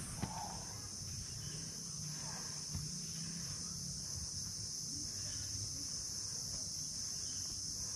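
Insects in tropical hill forest, keeping up a continuous high-pitched chirring. A soft knock sounds just after the start.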